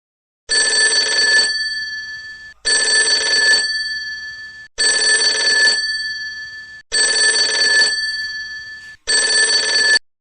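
Alarm clock bell ringing in five loud bursts about two seconds apart, each a second of rapid ringing that then rings out; the last burst is cut off short near the end.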